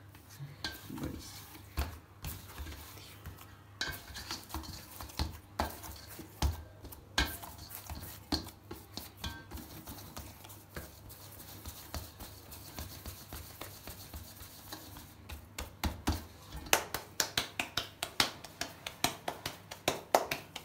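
Hands kneading and gathering maize-flour dough in a stainless steel bowl, with scattered knocks and scrapes against the metal. Over the last few seconds comes a quick run of slaps, about four a second, as the dough ball is patted flat by hand on a cloth.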